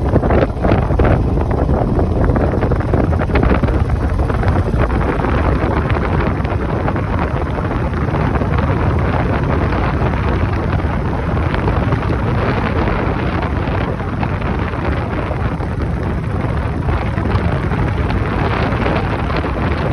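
Wind buffeting the microphone of a camera riding on a moving motorcycle, a loud, steady rush that covers any engine sound.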